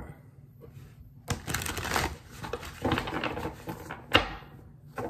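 Haindl Tarot cards being shuffled by hand: two stretches of papery riffling and rustling, then a single sharp slap of cards about four seconds in.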